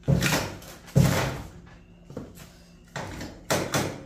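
Metal toolboxes and tools being handled and set down: a string of sharp knocks and clatters, about one a second, each trailing off briefly, with three in quick succession near the end.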